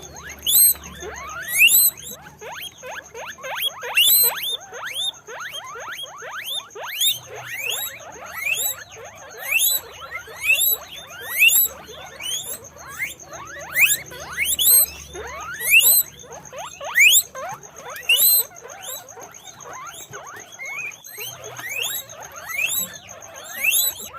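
Guinea pigs squeaking, a run of repeated rising squeals that often overlap, about one to two a second.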